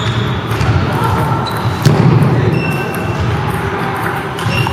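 Table tennis ball clicking off paddles and table during a rally, echoing in a large hall, with one louder thump about two seconds in.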